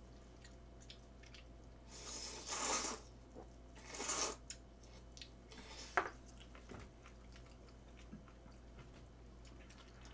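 Jjamppong noodles being slurped with chopsticks in two loud, hissing slurps, about two and four seconds in, with soft chewing between. A single sharp knock comes about six seconds in.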